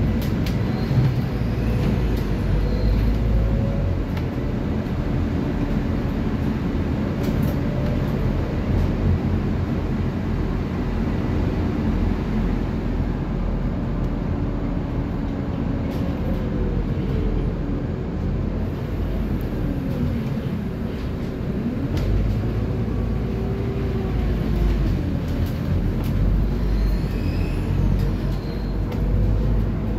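Scania city bus heard from inside while riding: the diesel engine and drivetrain run under a low road rumble, their note gliding up and down as the bus speeds up and slows. There are a few short knocks and rattles from the bodywork.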